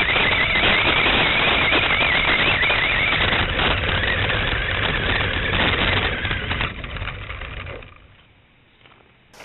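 WLToys L969 RC truck's electric motor and gears whining, with its tyres rattling over grass, heard from its onboard camera. The whine wavers up and down in pitch with the throttle, then winds down and fades out near the end as the truck stops.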